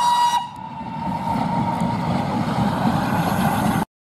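Steam locomotive whistle: a long blast, loud for the first half second, then held on as a fainter single tone over a steady low rumble. The sound cuts off suddenly near the end.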